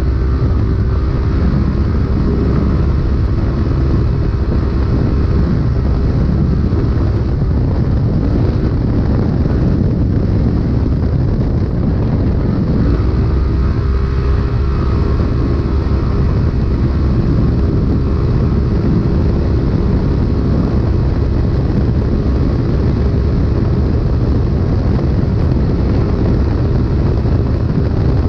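Polaris RZR UTV engine running hard under racing load, heard from inside the cab over a heavy low rumble. The engine note falls and climbs again in the first half, then rises just under halfway through and holds high.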